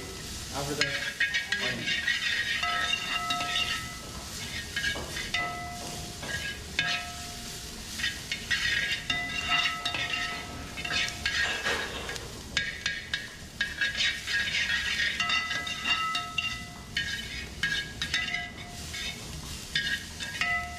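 A metal spoon repeatedly scrapes and clinks against a wide steel pan as onions are stirred while they fry, over a light sizzle.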